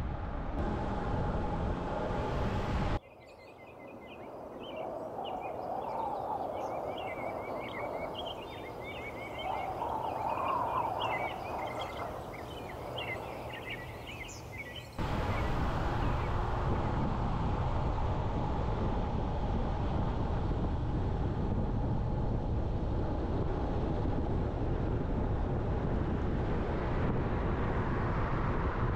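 Steady road and wind noise of a car driving. About three seconds in, it cuts to a quieter stretch with many birds chirping. About twelve seconds later the driving noise returns just as abruptly.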